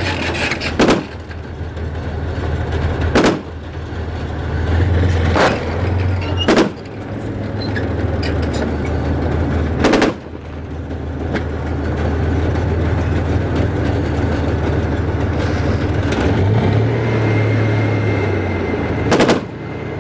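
Soviet-era tank's diesel engine running, swelling louder at times, with about six sharp gunshots at irregular intervals.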